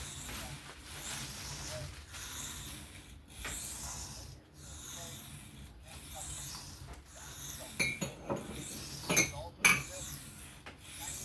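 Steel knife blade scraped back and forth across an Atoma 400 diamond sharpening plate in freehand sharpening, a hissing rasp repeating about once a second. A few sharper clicks of metal near the end.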